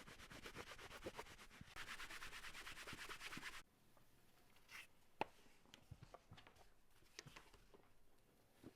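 Leather edges being rubbed briskly to polish and burnish them. The rapid, scratchy rubbing grows louder about two seconds in and stops suddenly after about three and a half seconds, followed by a few light taps and clicks.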